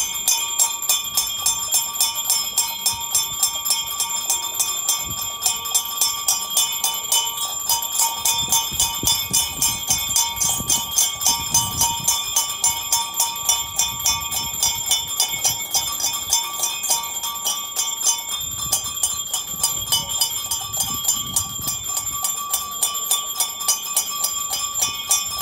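Temple bell rung steadily and rapidly, about three strikes a second, its ringing carrying on between strokes: the bell of aarti worship.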